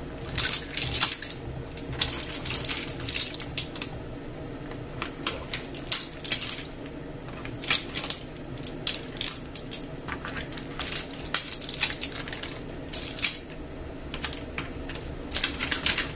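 Opened clam shells clacking and clinking against each other and the pan as a spoon stirs them, with irregular sharp clicks throughout.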